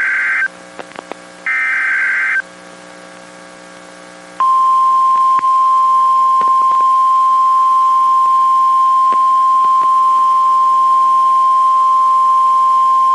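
Emergency Alert System SAME header: short bursts of harsh, buzzy digital data. The second burst ends just after the start and the third runs from about one and a half to two and a half seconds in. After a short gap comes the single steady 1050 Hz National Weather Service attention tone, held for about nine seconds. Together they signal an incoming weather alert, here a tornado warning.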